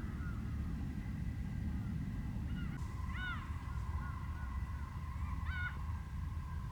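Birds calling: two clear, arched calls about three and five and a half seconds in, with softer short calls between them, over a steady low rumble.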